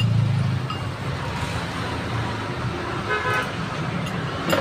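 Road traffic going by, with engines running steadily, and a short vehicle horn toot about three seconds in; a sharp click sounds near the end.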